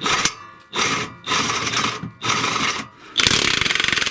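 Power impact wrench run in about five short bursts, hammering fast, working the bolts of the Geely MK's torn rear engine mount loose.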